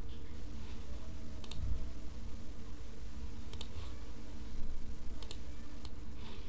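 Computer mouse clicking a few scattered times, each click a quick double tick, over a steady low hum.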